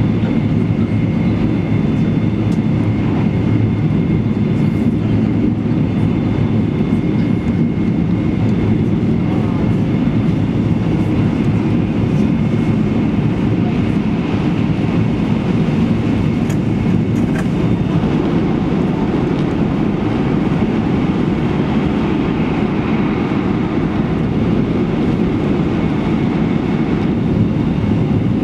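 Cabin noise inside an E2 series Shinkansen running at high speed: a steady noise of wheels on rail and air over the car, with a faint steady high whine. About halfway through, a train passing on the next track adds a brief whoosh.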